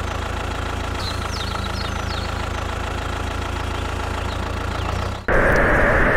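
A steady, low engine-like idling hum, with birds chirping faintly in the background. About five seconds in it cuts off abruptly and a louder, even rushing noise takes over.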